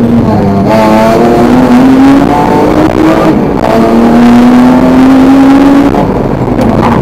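Car engine heard from inside the cabin during hard track driving, its pitch climbing steadily under acceleration and dropping sharply twice as the revs fall at a gear change or lift-off, over steady road and wind noise.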